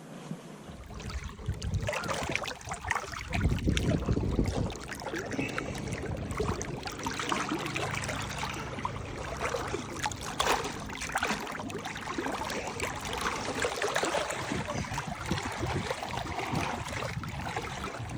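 Water splashing and trickling, with a few low rumbles on the microphone about three to five seconds in.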